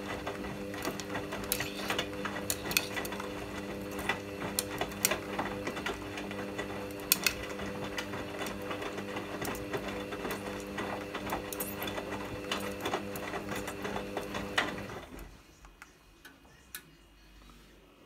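Hoover front-loading washing machine tumbling its drum in the first rinse of a cottons programme: a steady motor hum with irregular clicks and knocks from the wet load turning. The drum stops about fifteen seconds in, leaving it much quieter.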